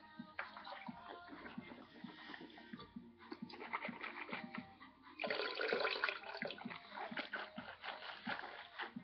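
Water being swished and sloshed around in a mouth during a rinse after dipping snuff, with a louder splash of liquid about five seconds in.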